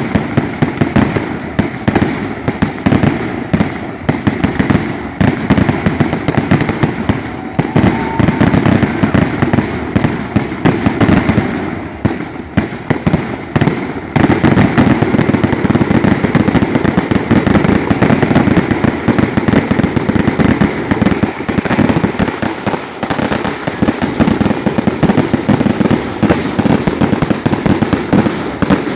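Fireworks display: a rapid, unbroken barrage of shell bursts and crackling bangs, growing louder and denser about halfway through.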